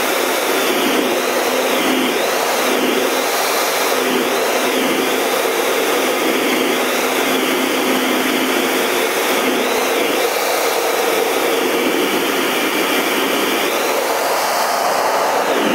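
Steady jet engine and airflow noise heard from inside the cockpit of a Snowbirds Canadair CT-114 Tutor jet in formation flight. A faint high whine wavers up and down over a low steady hum.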